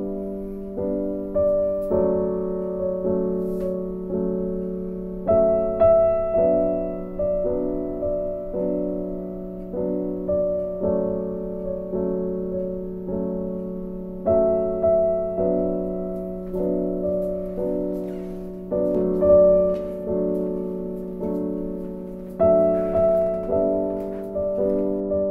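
Background piano music: a slow, gentle melody of single struck notes, each ringing and fading before the next.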